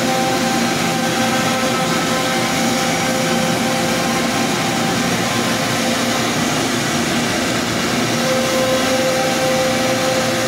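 Four-spindle CNC router (ALCA AL-2030-4S) running, its spindles routing round wooden discs: a steady machine drone with several high, steady whines, one of which grows stronger near the end.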